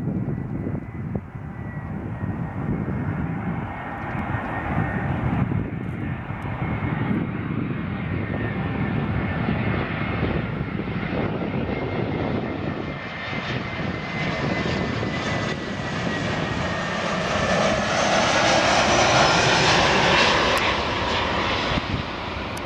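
Airbus A320-214's CFM56-5B turbofan engines on final approach: a steady jet rumble with a thin whine on top, growing louder as the airliner nears. The whine's pitch drops slightly in the second half as it passes.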